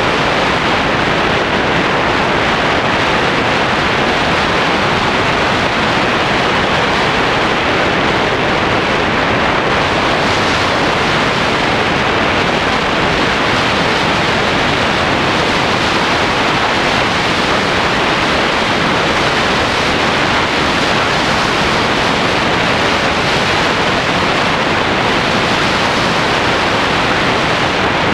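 Steady rush of wind over the microphone of a camera mounted on a tandem hang glider in flight, the airflow from the glider's forward speed.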